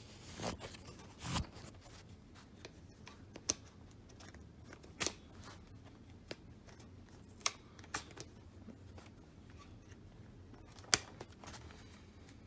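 Light handling noises: a few sharp clicks scattered through, the loudest about eleven seconds in, with soft rustling near the start over a faint steady hum.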